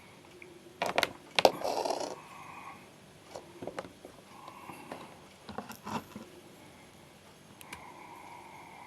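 Sharp clicks and a brief clatter of small hard objects being handled, followed by a few fainter clicks.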